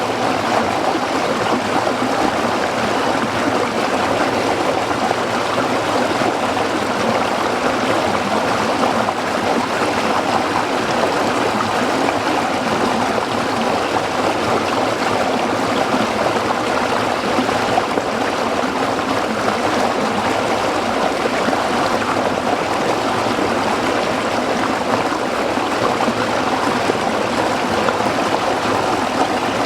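A small stream of water running steadily over rocks, an even rushing and babbling without pause.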